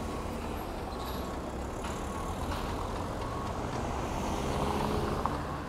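Road traffic: cars driving slowly past close by, their engines running over a steady low rumble, growing a little louder as one passes near the end.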